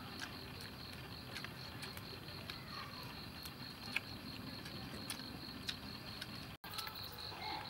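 Crickets chirping in a steady, evenly pulsing high trill, with scattered faint clicks over it. The sound drops out for an instant near the end.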